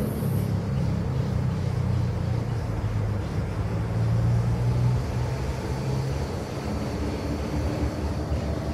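Low, steady engine rumble of a passing motor vehicle, its pitch wavering slightly as it goes.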